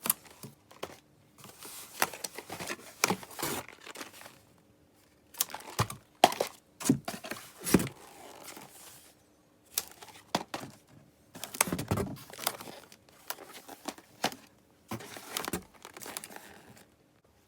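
Packaging being handled and unwrapped, crinkling and tearing in irregular bursts that stop shortly before the end.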